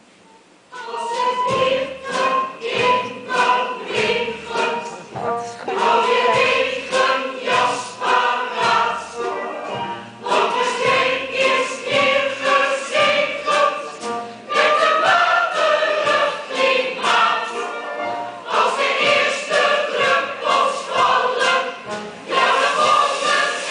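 Choir singing with musical accompaniment, starting suddenly about a second in.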